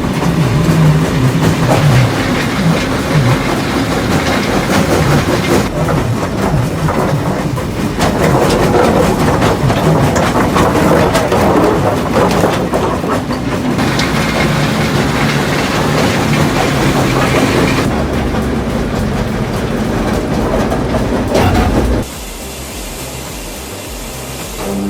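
Heavy industrial machinery running with a loud, continuous clattering and grinding, changing abruptly several times as the footage cuts between scenes, and dropping to a quieter hum for the last few seconds.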